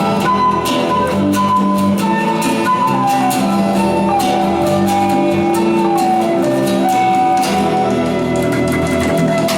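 A band playing an instrumental passage: a held, stepping lead melody over sustained lower tones and a steady drum beat.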